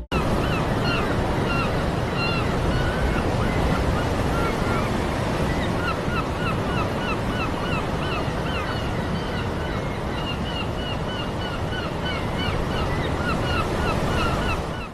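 A flock of birds calling over a steady rushing noise: many short, repeated honking calls overlap several times a second.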